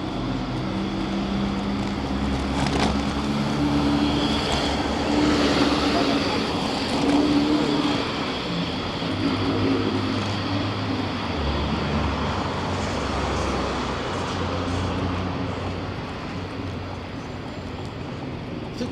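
City street traffic: car engines running and vehicles passing, with a steady low hum and passers-by talking.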